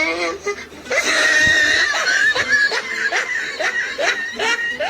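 Funny sound-effect clip playing from a phone: squeaky, cartoon-like laughing sounds, with short rising chirps repeating about three times a second over a steady high tone.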